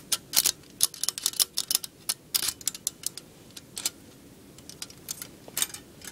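Metal cube maze puzzle being tilted and turned in the hands, its brass spike sliding and clicking against the metal maze walls: irregular sharp clicks, thick in the first few seconds and sparser after.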